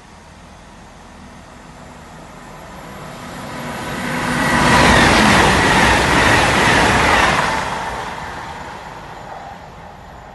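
A Great Western Railway Intercity Express Train (Class 800-series) passing through the station at speed without stopping. Its wheel and rail noise builds over a few seconds, is loudest for about three seconds as the coaches go by, then fades away.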